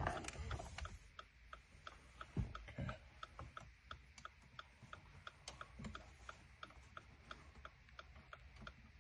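Faint, steady ticking at about three ticks a second, with a couple of dull handling thumps about two and a half to three seconds in.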